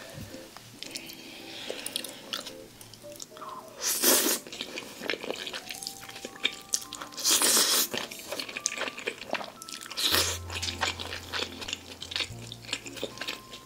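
Close-up eating sounds: wet chewing and crunching, with two loud slurps of black-bean-sauce (jjajang) instant noodles about four and seven seconds in.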